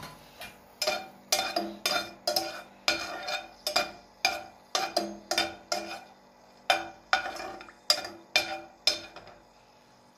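Slotted metal spoon stirring cardamom pods in melted butter in a pot, knocking and scraping against the pot about two to three times a second. Each stroke rings briefly, and the stirring stops about nine seconds in.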